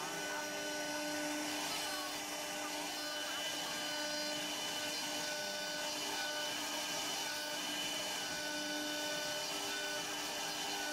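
Cylinder CNC router running steadily, engraving wood on its rotary axis: a steady whine of several tones over an even machine hiss.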